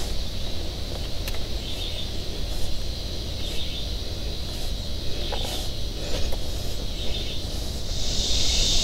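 Outdoor background: a steady low rumble under a steady high insect drone, with short chirps recurring about every second and a half and a louder high hiss swelling near the end.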